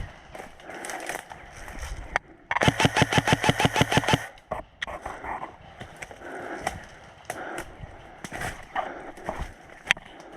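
Airsoft electric rifle, a G&G ARP9, firing one rapid full-auto burst of about a second and a half, starting about two and a half seconds in. Quieter shuffling and scattered clicks come before and after it.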